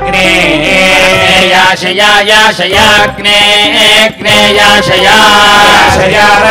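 A man chanting mantras into a handheld microphone in a continuous melodic recitation, broken by a few short pauses for breath.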